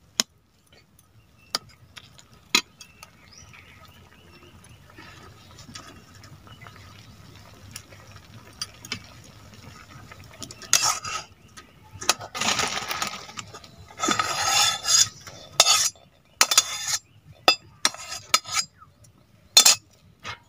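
Flat metal spatula scraping and clinking against a metal kadai as boiled papaya and potato cubes are stirred, then scraped out into a steel bowl. Only a few light clicks in the first half; from about eleven seconds in, the scraping comes in repeated loud strokes with sharp clinks.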